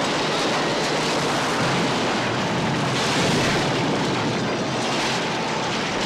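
Loud, steady rumble and crashing din of a stunt truck in action, with no single clear impact standing out.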